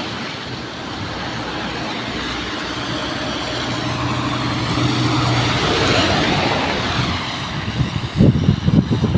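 Scania rigid curtainsider lorry approaching and passing on a wet road: its diesel engine note and the hiss of its tyres on the wet tarmac swell to a peak about six seconds in, then fade as it goes by. Low buffeting on the microphone near the end.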